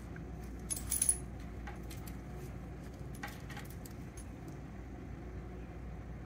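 A brief metallic jingle about a second in, with a few fainter light clicks later, over a steady low hum.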